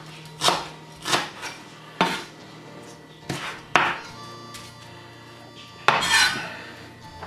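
Kitchen knife slicing a leek into thin strips on a wooden cutting board: a handful of separate knocks of the blade against the board, about a second apart, then a longer rustling scrape about six seconds in as the cut strips are gathered together.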